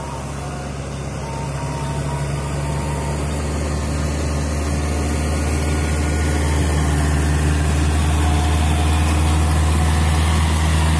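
Farm tractor's diesel engine running steadily under load while tilling a flooded rice paddy, growing louder as the tractor approaches.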